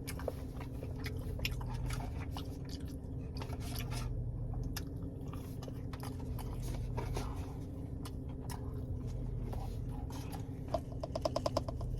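Close-up chewing of breaded popcorn chicken: a person's mouth crunching and smacking, with small wet clicks scattered through. Near the end comes a brief throaty, pulsing sound from the throat.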